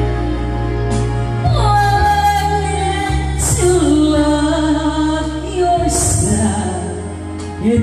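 A woman singing into a handheld microphone over backing music, holding long notes.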